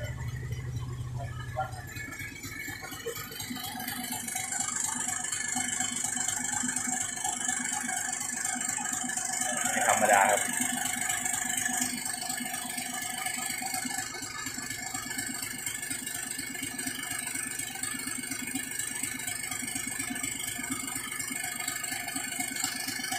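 Engine idling steadily with a light rattle. A brief, louder rising sound comes about ten seconds in.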